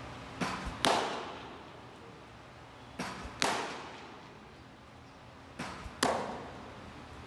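Baseballs popping into a catcher's mitt three times, about two and a half seconds apart, each a loud sharp smack that echoes off the walls. A softer knock comes about half a second before each catch.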